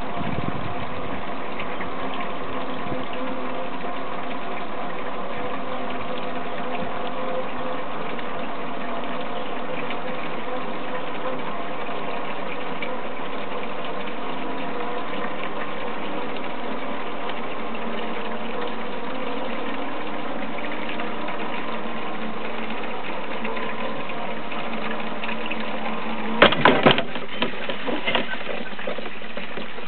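Material ropeway running steadily, a constant mechanical hum with a fixed pitch as the carrier with a bucket is hauled up the cable. Near the end a few sharp metal clanks as the carrier arrives at the top station.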